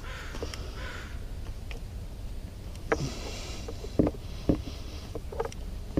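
Hands working on an outboard motor's fuel pump and fuel line: a few sharp knocks and taps, loudest about four seconds in, with soft hissing noises between.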